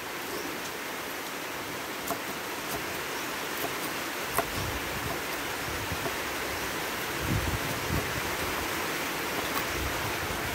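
Steady hiss of falling rain, with a few faint taps and low thuds.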